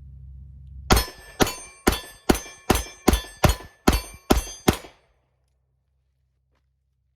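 Rapid gunfire: about ten shots fired in quick, even succession over some four seconds, then the sound cuts off abruptly.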